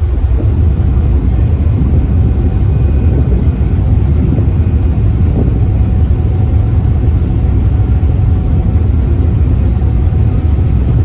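Steady loud low rumble aboard a passenger ferry under way: the ship's engine running, mixed with wind buffeting the microphone.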